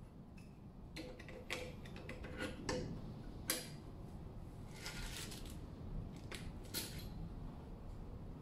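AA batteries being pressed into the battery holder on the inside of a steel drawer safe's door: a string of small plastic and metal clicks and taps, the sharpest about three and a half seconds in.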